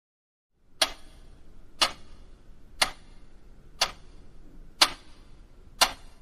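Clock ticking sound effect: six sharp ticks, evenly spaced about one a second, over a faint hiss.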